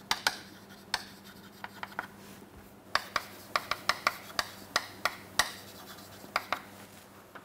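Chalk writing on a chalkboard: a quick string of sharp taps and short scratchy strokes as words are written, with a lull about two seconds in and the busiest run of strokes between about three and six and a half seconds.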